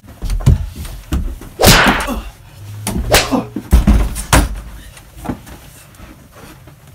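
A physical scuffle: a rapid run of sharp thuds, slaps and bumps with rushing whooshes, as a man is knocked against a wall and ends up on the floor. The hits come thickly over the first four and a half seconds, then it quietens.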